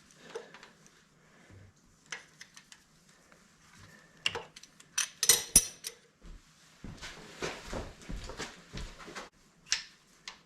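Small steel parts clinking and rattling as valve lifters are pulled from a Ford 460 V8 block and handled. Scattered light clicks, a quick run of sharp metallic clinks about halfway through, then a couple of seconds of scraping handling noise and one more clink near the end.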